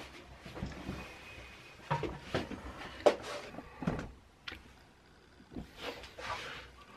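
Camera being handled and adjusted up close: a scattered series of short knocks and clicks in a small room.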